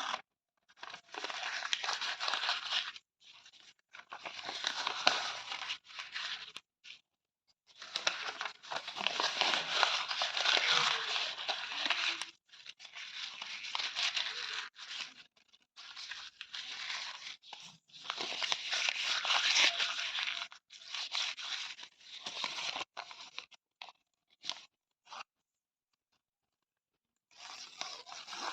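Paper being torn: a series of rips, some long and drawn out, some short, with brief pauses between them and a gap of about two seconds near the end.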